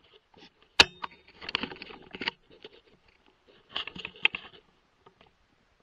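Close handling noise from a rifle and its thermal scope. About a second in there is one sharp click with a brief high beep after it, then two spells of rustling and scraping as the rifle and gear are shifted.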